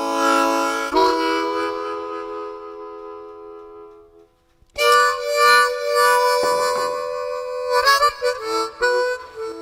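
Background music of held chords: one chord fades out about four seconds in, and after a brief pause a new phrase of sustained notes begins.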